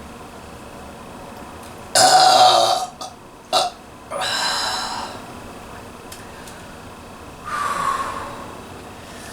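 A woman burping several times after chugging soda. There is a long, loud burp about two seconds in, then two shorter ones close after it, and a softer burp near the end that falls in pitch.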